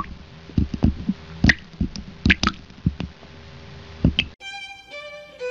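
A string of short clicks and soft thuds at uneven intervals, about a dozen in four seconds, from the sound effects of a channel intro. Music starts about four seconds in.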